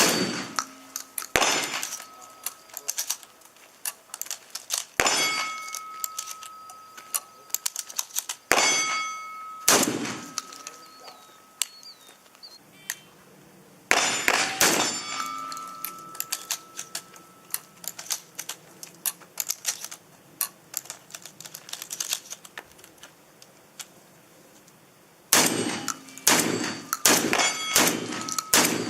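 Shotgun shots at steel targets. Several shots are followed by a struck steel plate ringing, and there is a quick string of shots near the end. Fainter cracks of other gunfire come in between.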